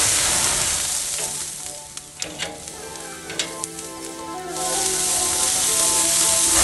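Vegetables sizzling on a hot barbecue grill with flames flaring, with a few sharp crackles between about two and three and a half seconds in; the sizzle dies down in the middle and swells again over the last two seconds. Soft background music underneath.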